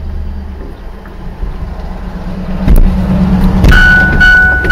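Vehicle engine running with a steady low rumble, a knock about two-thirds of the way in, then a loud steady high-pitched tone that starts near the end.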